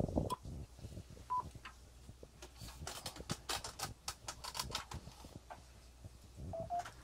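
Short electronic key beeps from an Icom IC-7000 transceiver as it starts up and is set to a frequency: a single beep about a second in, a quick pair of slightly lower beeps near the end, and a run of rapid clicks in between.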